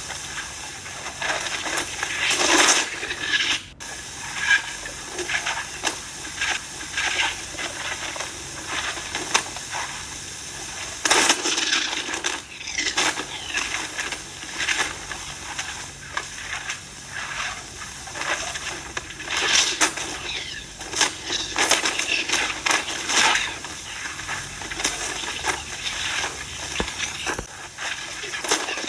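SSFX space sound effect, a sonified space recording: crackling, hissing noise that swells and fades in irregular bursts, dotted with sharp clicks and a few faint falling whistles.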